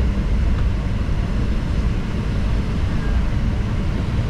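Airliner cabin noise while taxiing: a steady low rumble of the jet engines and the wheels rolling on the taxiway, heard from inside the cabin.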